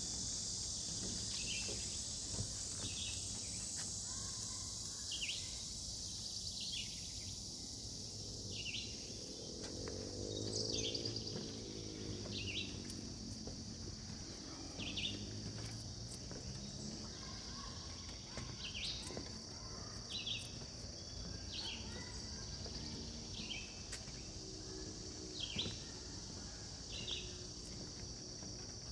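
Steady high buzzing of a summer insect chorus, with a short falling chirp repeated every second or so over it. A faint low hum swells and fades about halfway through.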